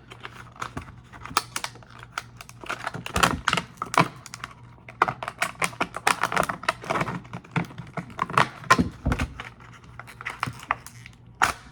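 A small plastic blade case and the metal oscillating multitool blades in it being handled: a long run of quick, irregular clicks and rattles.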